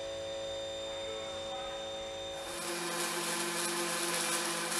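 Steady electrical hum with a few held tones. About two and a half seconds in, the steady hiss of a robotic welding arc comes in over it.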